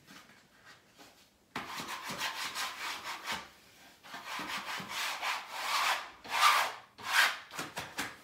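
Palms sweeping over freshly pasted wallpaper to smooth it onto the wall and push out air bubbles: a run of rubbing strokes starting about a second and a half in, with three short, louder swishes near the end.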